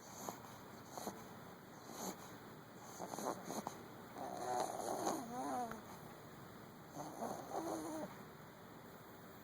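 Overweight chihuahua snoring in her sleep: short snores at first, then longer ones, with a wavering, pitched snore about five seconds in.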